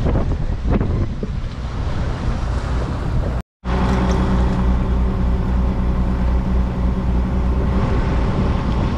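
A boat's engine running steadily, a low hum that comes in after a brief silent gap about three and a half seconds in. Before the gap there is wind and sea noise.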